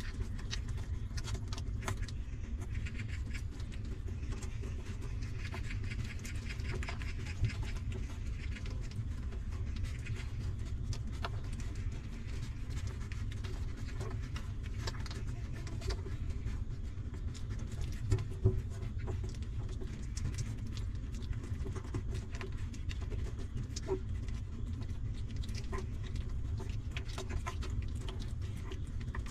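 Newborn puppies suckling at their mother dog's teats: many small wet clicks and smacks over a steady low rumble, with a couple of louder knocks about seven seconds in and again near the middle.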